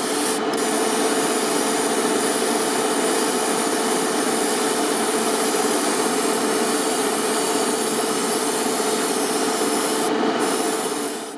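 A small power tool sanding steadily, a continuous gritty hiss over a steady motor hum, stopping abruptly at the end.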